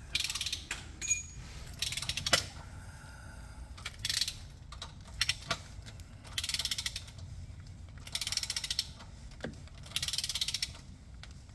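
Hand ratchet wrench worked back and forth: about six short bursts of rapid clicking, one every couple of seconds, with a few single metallic knocks between them.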